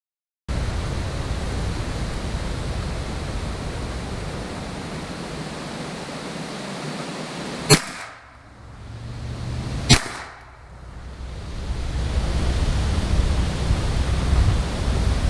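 Two gunshots about two seconds apart, each a single sharp crack, over steady wind noise on the microphone.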